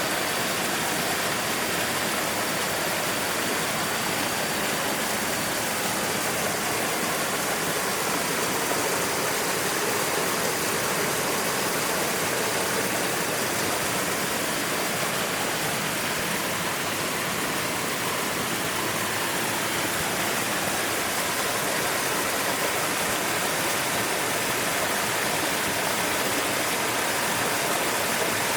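River water flowing steadily, a constant rushing noise.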